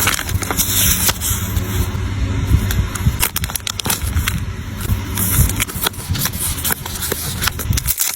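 Card packaging being handled close to the microphone: irregular crackling, scraping and rustling over a low handling rumble.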